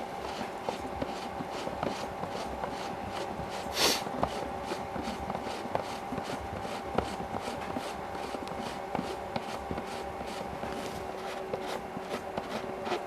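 Hands handling and fitting together 3D-printed plastic parts of a model artillery shell: a run of light clicks and rubs, with one louder rasping scrape about four seconds in.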